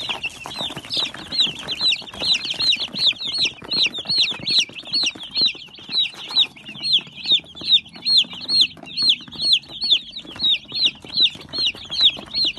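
Chick peeping steadily: a run of short, high-pitched peeps repeated about two to three times a second, with some light rustling and scratching underneath in the first half.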